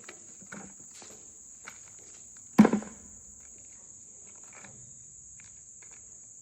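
Insects, crickets or similar, chirring steadily at one high pitch. A few light knocks come in the first second, and a single sharp loud thump about two and a half seconds in stands out as the loudest sound.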